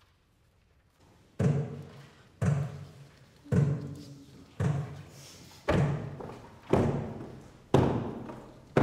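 Woollen cloth being waulked: beaten down on a wooden table in a steady rhythm, about one heavy thump a second, each dying away with a short echo. The thumps begin about a second and a half in.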